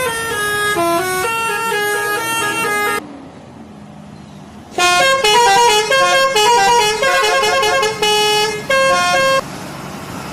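Indonesian bus 'telolet' horn, a multi-tone musical air horn playing a quick tune of stepped notes. One run sounds for about three seconds. After a short lull, a louder run plays for about four and a half seconds.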